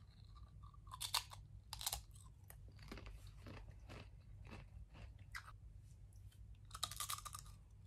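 Crunchy Doritos salsa-flavoured corn chip being bitten and chewed: a run of crisp crunches about once a second, with a denser cluster of crunches near the end.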